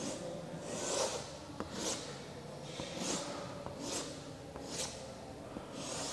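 Chalk scraping across a chalkboard as grid lines are drawn: a series of short rasping strokes, about one a second, with small taps of the chalk between them.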